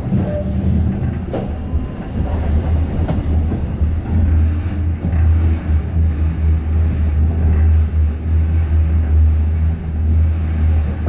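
Cabin noise of a Class 399 tram-train running along the line: a steady low rumble, with a couple of faint clicks.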